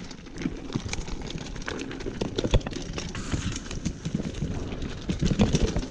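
Mountain bike rattling and clattering down a rocky dirt trail: irregular sharp knocks from the bike jolting over stones, over a steady rumble of tyres on the ground.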